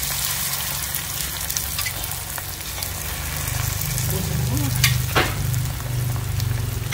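Vegetarian spring rolls (chả giò) sizzling as they fry in hot oil, with a steady low hum underneath. A couple of sharp clicks come about five seconds in.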